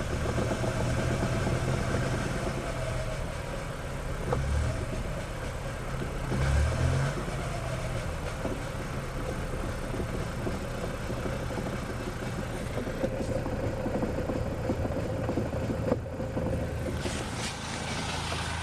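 Geo Metro running in fifth gear with its front wheels spinning off the ground, with a continuous knocking from the front axle area that changes with wheel speed. The owner suspects a bad CV axle or the brakes.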